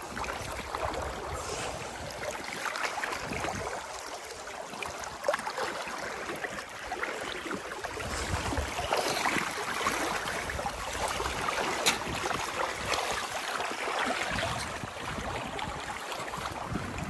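Boots splashing through shallow water and crunching on gravel in an uneven, continuous stream of small splashes and scuffs, with one sharp click about twelve seconds in.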